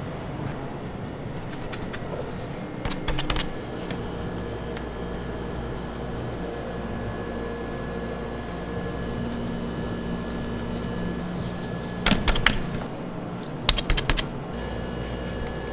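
Steady machine hum of a bakery kitchen, with short bursts of clicking clatter from dough handling about three seconds in and twice near the end.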